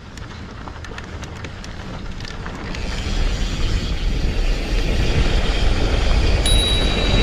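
Mountain bike riding downhill on a dirt trail: wind on the microphone and a rumble of tyres and rattling bike that grow louder as speed builds, with scattered small clicks in the first few seconds. Near the end a steady high-pitched whine sets in.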